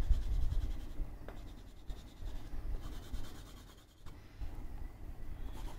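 Crayon rubbing across a sheet of paper in quick back-and-forth strokes as an area is coloured in.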